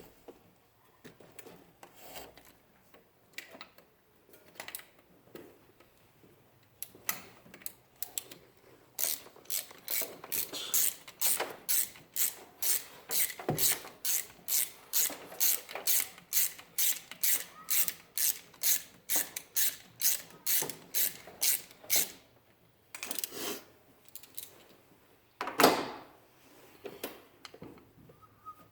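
Ratchet wrench worked back and forth on a bolt in the engine bay, its pawl clicking in an even run of about two strokes a second through the middle, with scattered clicks before it and a few louder knocks of tools or parts near the end.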